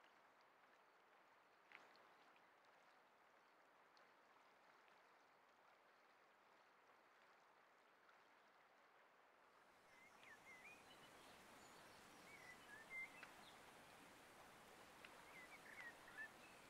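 Faint outdoor ambience: a soft steady hiss that swells about ten seconds in, joined from then on by a few small bird chirps.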